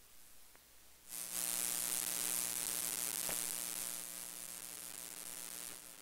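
Electromagnetic interference picked up by an Amazon Basics XLR microphone cable laid over a wireless charger and wall-wart power adapters, heard with the recording boosted by 48 dB. A faint noise floor gives way, about a second in, to loud hissing static with a steady low hum, which eases a little past the middle and cuts off just before the end. The pickup shows the cable's poor shielding.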